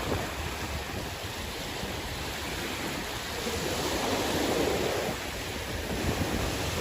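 Sea waves washing in, a steady rush of surf that swells in the middle and eases off again.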